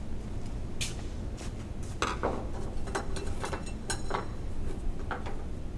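Light metallic clinks and rattles, a scatter of sharp clicks, as metal shelving hardware is handled.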